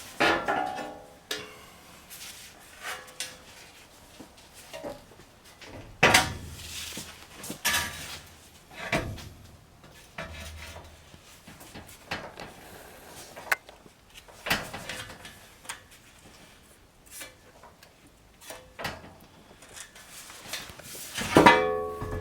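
Scattered metal clanks and knocks, some ringing briefly, as steel parts are handled and set down, with two louder clanks about six seconds in and near the end.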